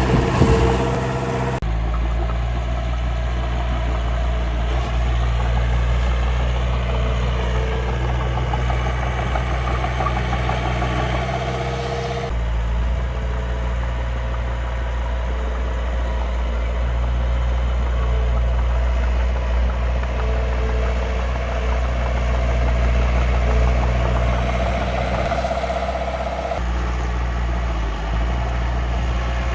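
Steady engine running sound from the miniature dump truck and bulldozer, a low even hum that changes abruptly about 2, 12 and 27 seconds in.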